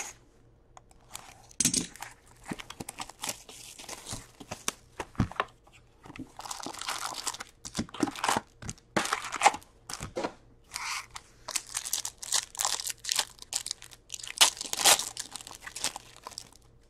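A cardboard hobby box being opened and foil wrappers of 2019-20 Upper Deck Series Two hockey card packs crinkled and torn open by hand: irregular crinkling, rustling and tearing in short bursts, loudest near the end.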